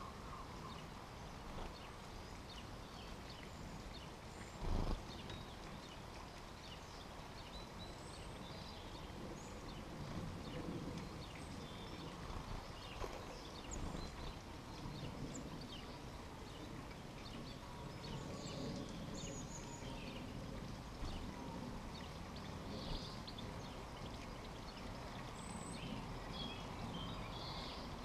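Faint outdoor garden background with scattered short, high bird chirps and small ticks, and one dull knock about five seconds in.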